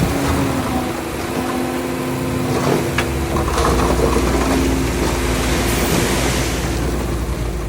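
Heavy diesel earthmoving machinery running steadily, its engine a set of held tones over a noisy wash, with a sharp click about three seconds in and a deeper low rumble coming in just after.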